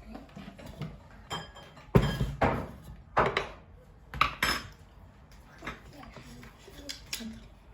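Kitchen dishes and utensils knocking and clinking against a mixing bowl while flour is added to dough, with a handful of sharp knocks between about two and four and a half seconds in, a few of them ringing briefly.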